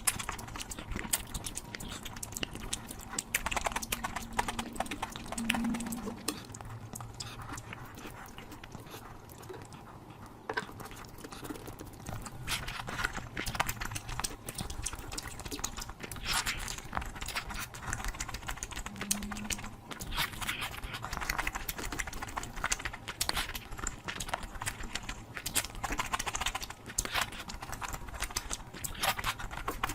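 Close-miked eating sounds of someone eating curry: chewing and wet mouth smacks, heard as a dense string of irregular clicks.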